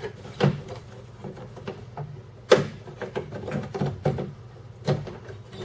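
Metal clicks and clunks from inside a 1998 Chevy pickup's door as the inside door handle, its rods and the latch are worked by hand, with three sharper knocks about half a second, two and a half and five seconds in.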